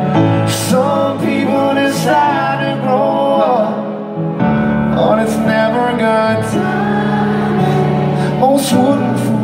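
Live band performing a song: a male lead singer holding long sung lines over keyboards, electric guitar and a steady bass line.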